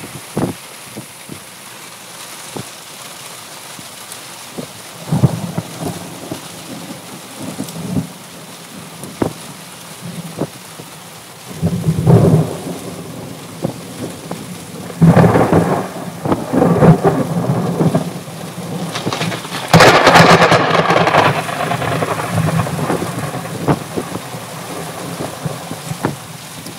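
Heavy rain in a thunderstorm: a steady hiss of rain with many scattered drops striking, broken by several loud surges of thunder, the longest and loudest about twenty seconds in.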